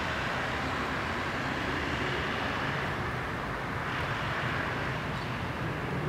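Steady hum of distant road traffic, an even rumble and hiss with no single car standing out.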